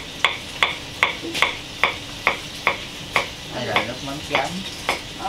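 Kitchen knife slicing garlic cloves on a wooden chopping board: a steady run of sharp knocks, about two and a half a second, as the blade strikes the board.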